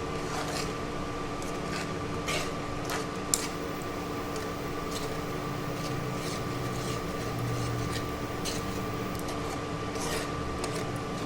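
Spatula stirring and scraping masala paste in a kadhai, with short scrapes and clicks scattered over a steady hum.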